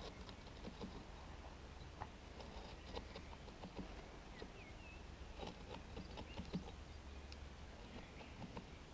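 Scattered light taps and scrapes of a hand trowel working the edge of freshly poured wet concrete, faint and irregular. A brief bird chirp comes about halfway through.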